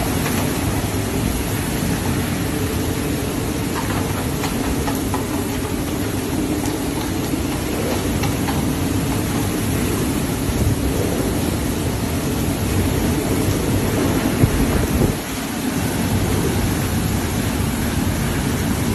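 Hurricane rain pouring and strong wind blowing, a loud, steady rush with wind rumbling on the microphone. The wind surges briefly about fourteen seconds in.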